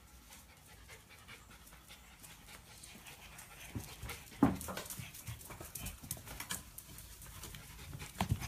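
A small dog panting in quick, breathy strokes that start a few seconds in, with a sharp knock about four and a half seconds in.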